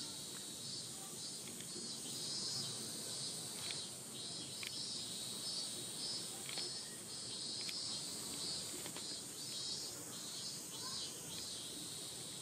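Cicadas buzzing in chorus: a steady, high droning buzz with a slight regular pulsing.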